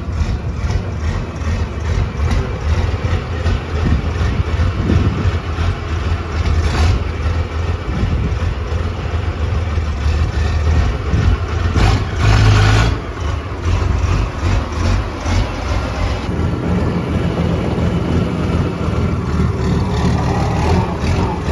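Turbocharged six-cylinder diesel engine of a Fordson Major tractor puller running as the tractor drives off and about the yard, with a louder surge of revs about twelve seconds in. The freshly refitted twin-plate clutch takes up cleanly, with no grinding from the gears.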